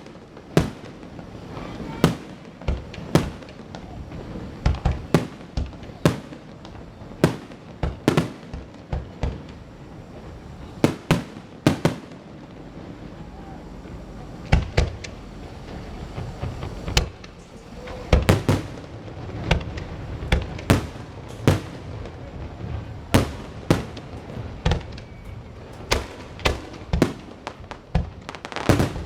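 Fireworks going off: a continuous run of sharp bangs at irregular intervals, roughly one or two a second, over a steady noisy background.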